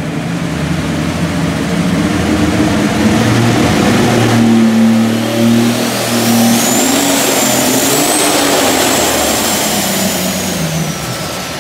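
Tractor-pull tractor engine revving hard under load as it pulls the weight sled. About four and a half seconds in, a high whine rises and holds, then falls away near the end as the engine noise eases.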